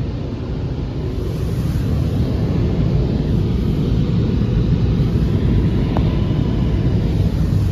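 Istobal M'Start rollover car wash running, its green and black Carlite side brushes spinning and scrubbing against the car, heard from inside the car's cabin as a steady low rumble.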